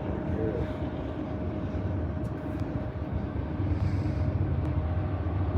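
Rebuilt Norfolk Southern diesel locomotives working hard under load as the train approaches: a steady low engine rumble that grows heavier in the last couple of seconds.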